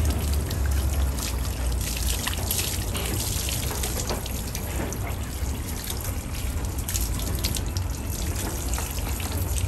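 Water from a garden hose running over a goat's wet coat and splattering and trickling onto muddy ground, a steady stream with many small splashes.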